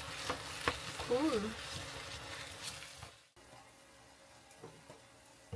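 Vegetables and sauce sizzling in a frying pan, with sharp clicks of a utensil stirring against the pan. About three seconds in the sizzle cuts off abruptly, leaving a much quieter stretch with a few faint taps.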